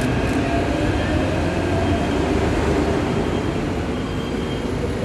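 Taipei Metro train running, a steady rumble with a few faint, steady whining tones over it.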